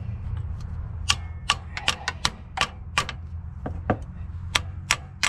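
Ratchet wrench clicking in steady strokes, about three sharp clicks a second, starting about a second in, over a low steady hum.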